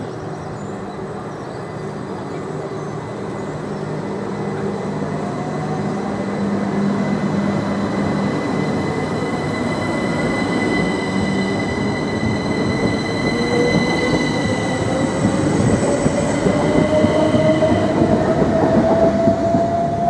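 Southern Class 377 Electrostar electric multiple unit accelerating past, growing louder, with wheel-and-rail rumble under its electric traction whine. Over the last several seconds one clear whine climbs steadily in pitch as the train gathers speed.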